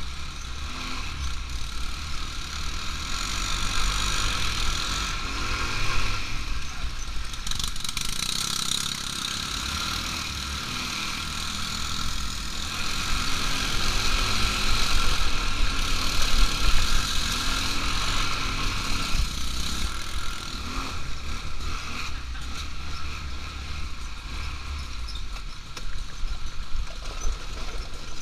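ATV engine running under way while riding, its note wavering with the throttle. It grows louder for a few seconds past the middle.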